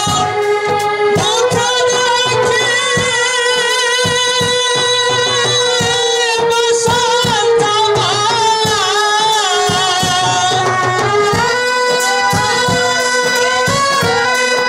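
Jatra song sung live, long held notes with heavy vibrato, over instrumental accompaniment and a steady drum beat.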